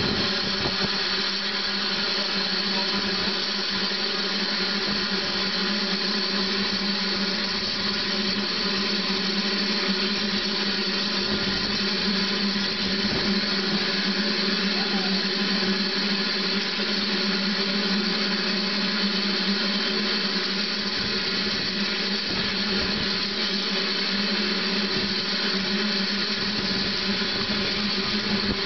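Small saddle-tank steam locomotive standing in steam, giving off a steady, unchanging hiss with a constant hum underneath.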